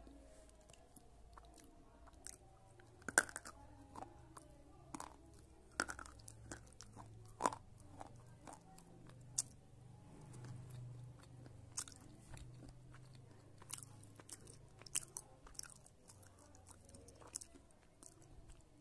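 A person chewing a mouthful of slate pencil, with irregular sharp crunches as the brittle pieces break between the teeth. The loudest crunches come about three, six and seven and a half seconds in.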